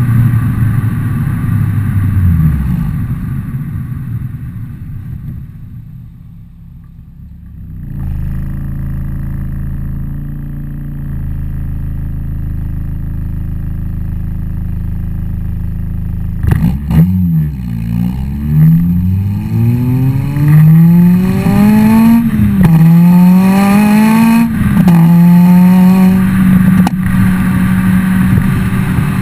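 Honda Civic EP3 Type R four-cylinder through a decatted Fujitsubo RM-01A cat-back exhaust. The revs fall away and the engine idles steadily. About halfway through a sharp crack comes from the exhaust, then several revs that climb and drop, and near the end the engine is held steady at high revs.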